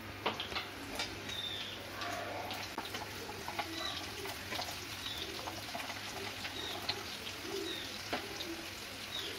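Sliced onions frying in hot oil in a kadai, sizzling with frequent crackles and pops, and a wooden spatula stirring them against the pan. A few short high chirps sound over the frying.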